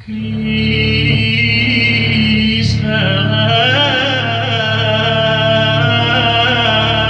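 Live music in a small room: sustained instrumental tones over a low drone start sharply, and a singing voice joins about three seconds in.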